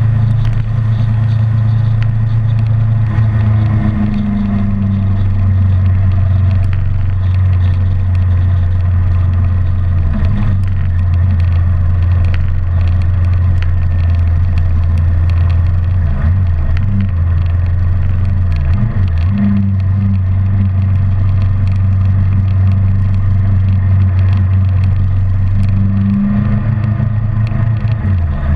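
Kawasaki Ninja 650R's parallel-twin engine running steadily while riding at cruising speed, heard from on the bike with wind noise over the microphone. The engine note breaks briefly a few times in the second half.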